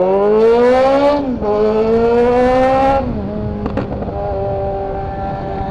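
Yamaha XJ6's 600 cc inline-four running through a straight pipe with no muffler, accelerating up through the gears. The engine note rises, drops at a shift about a second in, rises again to a second shift about three seconds in, then holds steady.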